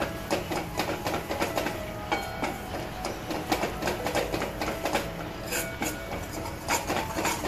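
Steel spoon scraping and knocking against a stainless steel kadhai as ragi (finger millet) flour is stirred and roasted in ghee: a quick, irregular clatter of several strokes a second, with the pan ringing faintly.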